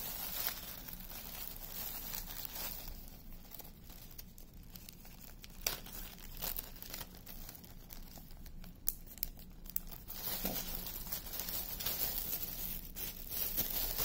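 Small plastic bags of diamond painting drills crinkling and rustling as they are handled, with a few sharp clicks.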